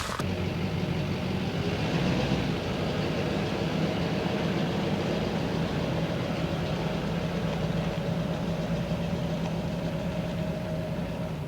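Pickup truck engine running steadily with an even hum and no revving.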